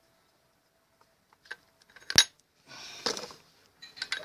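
Metal engine parts and tools clinking as they are handled on a stripped 152QMI scooter engine: a few light clicks, then one sharp metallic knock about two seconds in, and a brief rattle and more clicks near the end.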